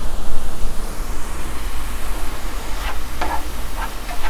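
Sliced mushrooms sizzling in butter in a skillet over a steady low hum, with a few utensil scrapes against the pan about three seconds in as they are stirred.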